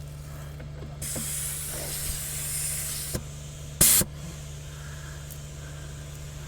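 Air hissing at a backhoe's rear tire valve for about two seconds, then a brief sharp hiss, the sound of tire inflation and a pressure check. A steady low hum runs underneath.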